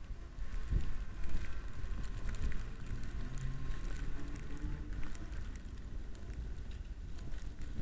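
E-bike riding through snow: a steady low rumble of wind on the microphone and road noise, with scattered small clicks. A faint whine rises slowly in pitch through the middle.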